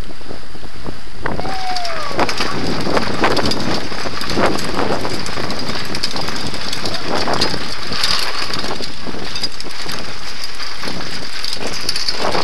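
Handbike rolling over cobblestones, its frame and the mounted camera rattling continuously, with wind noise on the microphone; the rattle grows harsher about a second in.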